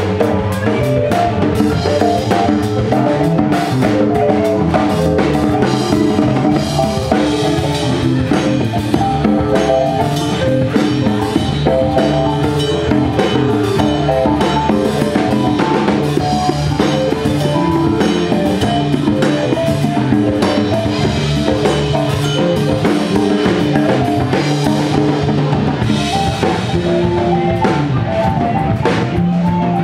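Live band playing an instrumental passage: a drum kit with kick, snare and cymbals keeps a steady beat under electric bass, keyboard and a hand drum struck with bare hands.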